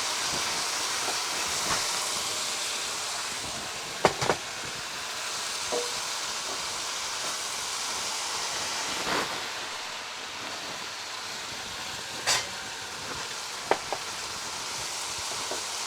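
Chicken and sauces sizzling in a non-stick pan on high heat: a steady frying hiss, with a handful of sharp knocks and clinks of a utensil against the pan.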